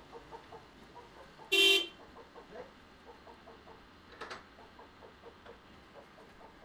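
A vehicle horn gives one short toot, about a second and a half in.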